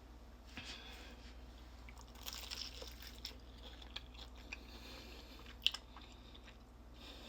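Close-up crunching and chewing of crispy fried chicken: scattered small crackles and wet mouth sounds, with one sharp crunch a little before the end.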